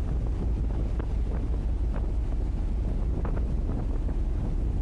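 Wind buffeting the microphone on the open deck of a car ferry under way, a steady low rumble.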